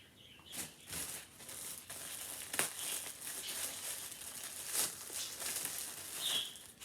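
Plastic clothing packaging being handled and opened, crinkling steadily with several sharp crackles.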